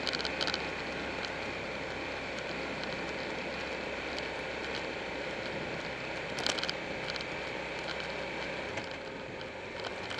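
Buell 1125R motorcycle underway: steady wind and road noise with the V-twin engine beneath, and a few sharp rattles about six and a half seconds in. The low rumble drops away near the end as the bike slows.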